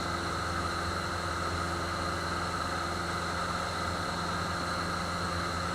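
Cessna 150F's four-cylinder Continental O-200 engine running steadily, an even drone that holds the same pitch throughout.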